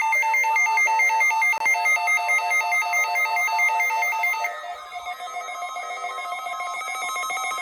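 Electronic alert tones: a loud, rapid warble between two pitches, like a ringing phone. About four and a half seconds in it drops quieter and changes to layered steady tones with sweeping, siren-like glides.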